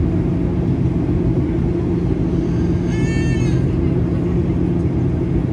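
Steady cabin roar of a passenger airliner in flight, engines and airflow, with a constant low hum underneath. About three seconds in a brief high-pitched sound rises out of the roar for about half a second.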